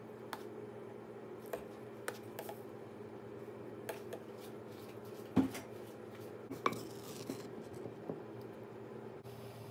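Utensils working in a wooden mortar: scattered light scrapes and clicks, with a duller knock about five and a half seconds in, over a steady low hum.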